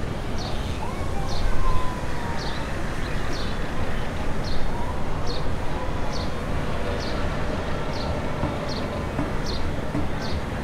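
Boeing 777-300ER's GE90 engines at taxi power, a steady low rumble as the jet taxis. A short high chirp repeats about once a second over it.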